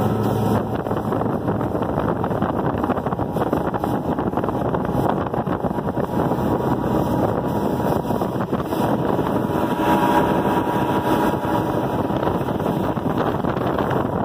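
Mercury 200 EFI 2.5-litre V6 two-stroke outboard running steadily while the bass boat is under way, its fuel system cleaned and its fuel pump wired to bypass the ECU. Water rushing past the hull and wind on the microphone mix in.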